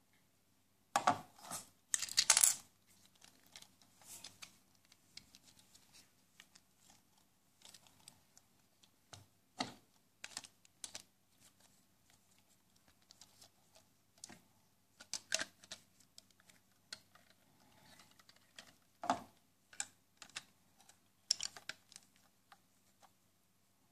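Plastic Lego and Mega Bloks bricks clicking and rattling as the toy truck model is handled and its parts fitted together: scattered sharp clicks, with the loudest clatter about two seconds in.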